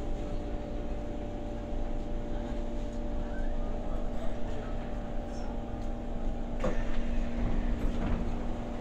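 Cabin noise of an SMRT C151 metro train slowing into a station: low rumble under a steady hum of a few constant tones, with a sharp clack about two-thirds of the way through.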